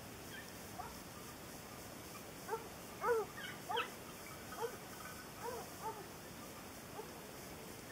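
Pack of boar-hunting hounds baying on the trail of wild boar, a scatter of short yelping calls from several dogs. The loudest calls come about three to four seconds in.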